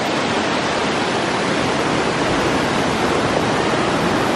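The Giessbach waterfall's water rushing down over rock, a loud, steady, even noise.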